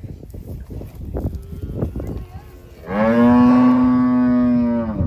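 A cow mooing: one long, steady moo of about two seconds, starting about three seconds in. Scattered rustling and knocks come before it.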